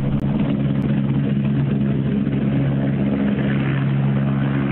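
Helicopter taking off close by, its rotor and engine running loud and steady.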